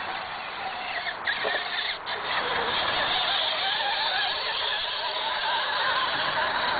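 Radio-controlled rock crawler's electric motor and gears whining, the pitch wavering up and down with the throttle as it crawls close past, loudest in the middle. A couple of sharp clicks in the first two seconds.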